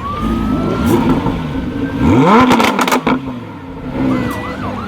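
Lamborghini Huracán LP610-4 Spyder's V10 engine idling, then one sharp rev blip about two seconds in that drops back with crackles and pops from the exhaust.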